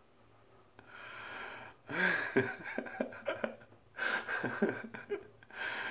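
A man laughing hard: a breathy wheeze about a second in, then two bouts of short pulsed laughs, ending in a breathy wheeze.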